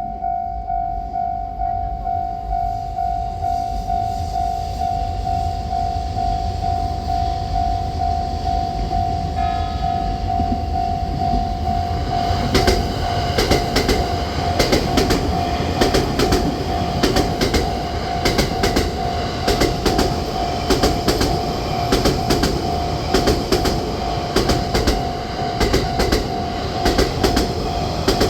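Japanese level-crossing warning bell ringing in a fast, even repeat throughout. From about twelve seconds in, a JR train passes through the crossing, its wheels clacking over the rail joints in quick, regular groups.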